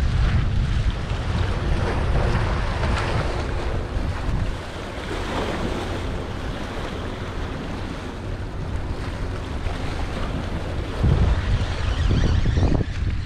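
Wind buffeting the microphone, with choppy saltwater waves splashing and washing against the rocks. The wind rumble eases a few seconds in and picks up again near the end.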